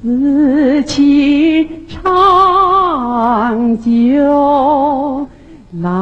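A slow Chinese song sung by a single voice: long held notes with vibrato, with short breaks between phrases, one about two seconds in and one near the end.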